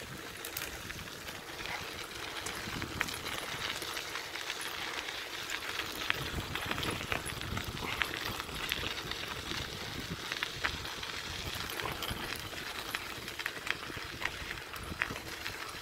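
Steady crunching of gravel from travel along a loose gravel track, with many small clicks of stones.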